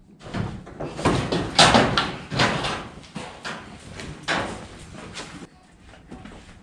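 A wooden barn door being opened and handled, with several knocks, bangs and scrapes in the first half, then quieter rustling.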